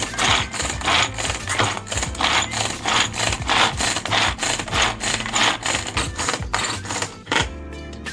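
Mini chopper chopping vegetables with a rhythmic whirring, about two short strokes a second, that stops near the end. Background music plays underneath.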